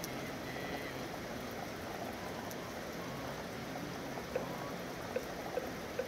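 Steady rain falling in a city. About four seconds in, a run of light, regular taps starts, a little over two a second.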